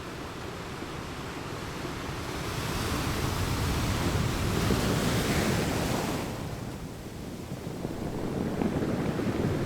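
Sea waves washing onto a shore: a wave builds and breaks about four to six seconds in, falls away, and the next one begins to swell near the end.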